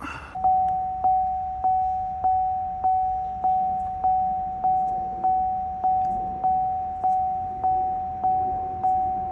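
Car warning chime from a 2013 Buick LaCrosse, a single mid-pitched tone that keeps repeating about every 0.6 seconds, each chime struck sharply and fading. It starts about half a second in.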